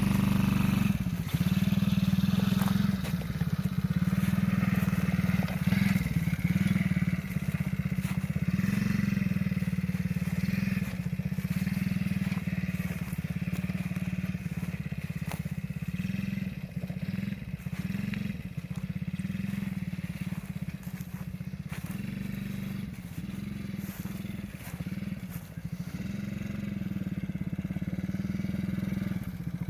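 Small 50cc children's ATV engine running steadily, its pitch and level rising and falling slightly as it rides about, with faint crackles and scrapes over it.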